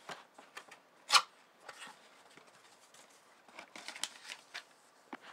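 Cardboard box flaps and paper documents being handled: a string of short rustles and taps, the loudest about a second in and a cluster of them near four seconds.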